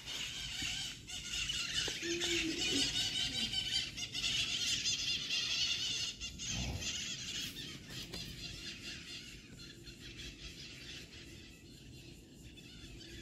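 A flock of birds chattering and squawking in shrill, overlapping calls, thinning out and fading after about eight seconds.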